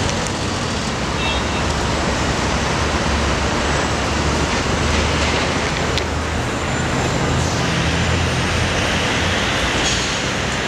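Steady city traffic noise with the low rumble of several diesel dump trucks idling in the street.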